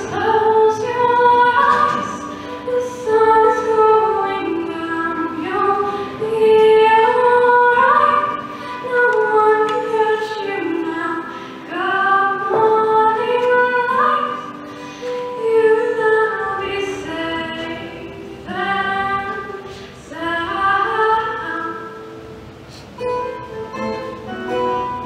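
A young woman singing while strumming an acoustic guitar, recorded through a camera's built-in microphone. Near the end the voice drops out and the guitar strumming comes forward.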